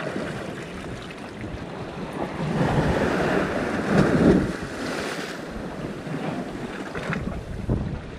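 Sea waves surging and splashing against a rocky shore, swelling to a loud wash about four seconds in and then easing, with wind buffeting the microphone.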